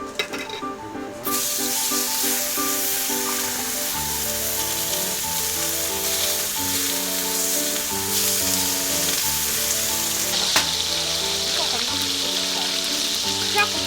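Food sizzling on a hot cooking surface, starting suddenly about a second in as it goes on the heat and then frying steadily.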